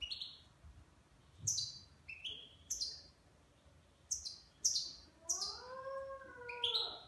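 Caged European goldfinch calling: about eight short, sharp notes, each sliding steeply down in pitch, spread out with pauses between them. About five seconds in, a lower, drawn-out note rises and falls for over a second.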